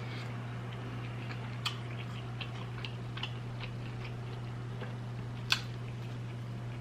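Eating sounds of a mukbang: scattered small wet clicks and smacks of chewing close to the microphone, with a sharper click about five and a half seconds in, over a steady low hum.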